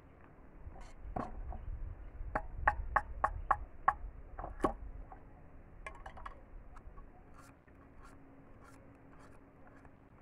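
Bolo knife working bamboo for barbecue skewers: a quick run of sharp wooden taps and knocks in the first half, then lighter scattered ticks and scraping.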